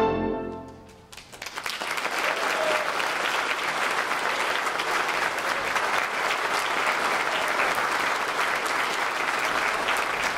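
A brass band's final held chord cuts off and dies away in the room's reverberation. About a second later the audience breaks into applause, which goes on steadily.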